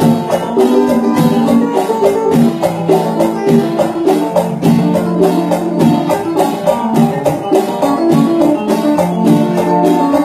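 Marimba orchestra playing a danzón live: struck marimba notes and electronic keyboard over a steady, light percussion beat.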